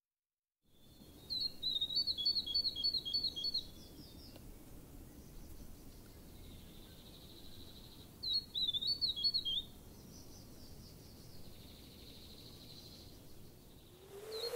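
A small bird singing two short phrases of quick, repeated high chirps, about five seconds apart, over faint steady background noise.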